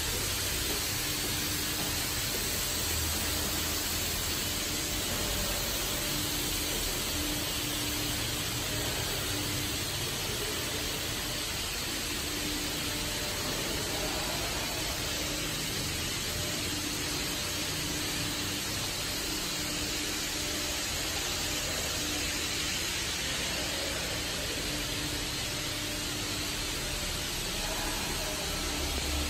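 Steady hiss with a faint low hum that comes and goes: background noise of a large room.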